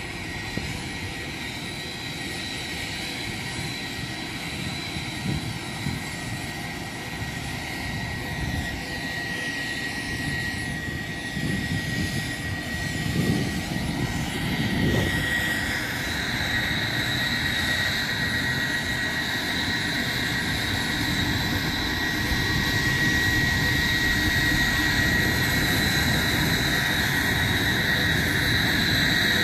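Auxiliary power unit of a Lockheed WP-3D Orion running with a steady high whine, the propeller engines shut down. It grows steadily louder as the microphone approaches the aircraft.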